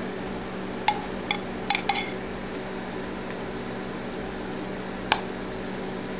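Metal spoon clinking against a glass pickle jar while scooping out relish: a quick cluster of light clinks between about one and two seconds in, then a single clink near the end. A steady low hum runs underneath.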